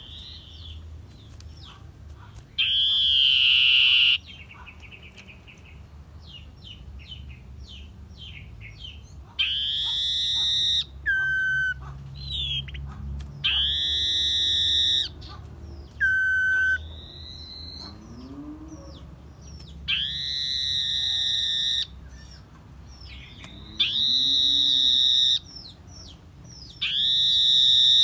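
Common iora in breeding condition singing: a series of about eight loud, high whistled notes, most held a second or two, some ending with a drop to a lower note, with soft chirps in between.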